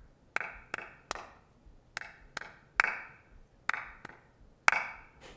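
Recording of two people clapping a simple rhythm together with a 78-millisecond delay between them: sharp hand claps in uneven groups of two or three. The tempo is slowing as the delay makes the pair fall apart.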